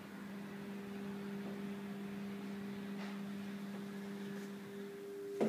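A steady low hum holding two pitches, with a sharp knock near the end.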